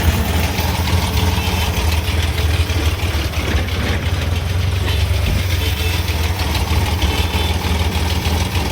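Multicab mini truck's 12-valve engine idling steadily.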